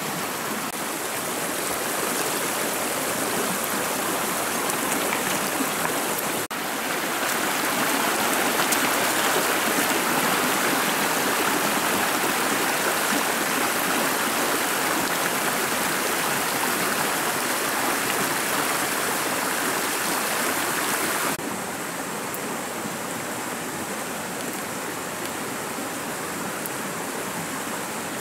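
Steady rush of water over a shallow rocky mountain stream. It gets louder suddenly about six seconds in and drops back suddenly about twenty-one seconds in.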